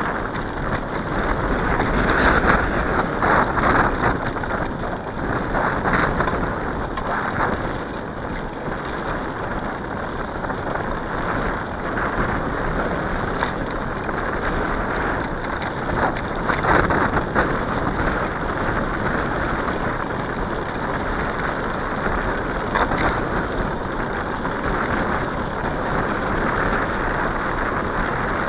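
Steady rush of riding noise from a bicycle moving along a paved path: wind on the microphone and tyre noise, with a few faint clicks.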